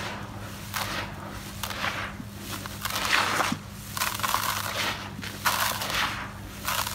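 Hands digging into dry, crumbled concrete powder and letting it pour back down: a gritty rustling hiss of falling grit and crumbs in repeated surges, about one a second.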